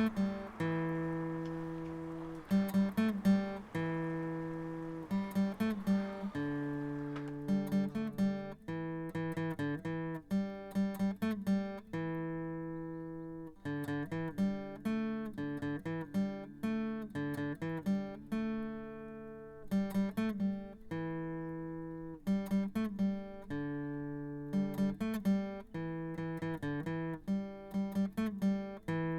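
Background music: acoustic guitar, plucked notes and chords ringing out in a repeating rhythmic pattern.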